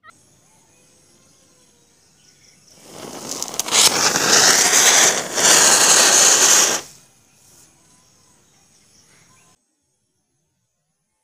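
Chakri ground-spinner firework burning: a loud spark hiss swells up about three seconds in and runs about four seconds with a wavering whine over it, dipping briefly in the middle, then dies away suddenly.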